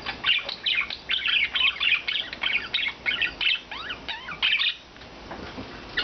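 Budgerigars chattering and warbling: a rapid run of chirps, short gliding whistles and squawks that dies away about five seconds in.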